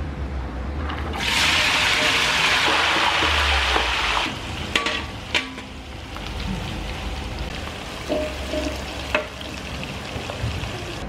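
Sliced shallots tipped into hot oil in a wok, bursting into loud sizzling about a second in. After a few seconds it settles to a steadier, quieter frying, with a metal spatula scraping and clacking against the wok a few times as they are stirred.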